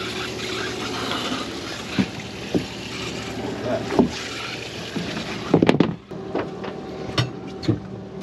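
Wind and water around a drifting fishing boat under a steady low hum, broken by sharp knocks and clatter of fishing gear being handled on the fiberglass deck, loudest in a quick burst of clatter about five and a half seconds in.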